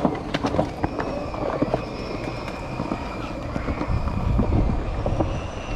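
Skateboard wheels rolling on concrete with scattered clacks and knocks of the board, the rolling rumble swelling about four seconds in.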